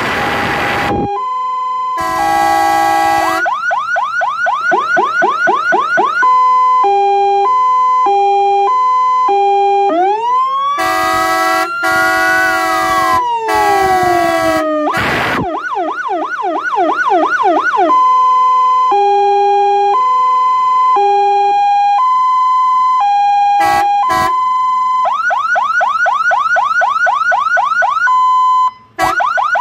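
Fire engine siren cycling through its tones: a two-tone hi-lo alternation, stretches of fast yelp, and one slow wail that rises and then falls about ten seconds in. Short blasts of the horn come twice near the start and three times during the wail.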